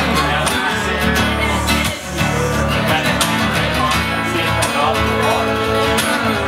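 Solo acoustic guitar strummed in a steady rhythm, chords ringing between the strokes, with no voice.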